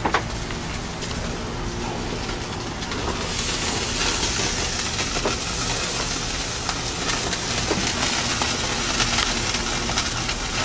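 Meat sizzling on a hot grill, a steady hiss that grows louder and brighter about three seconds in.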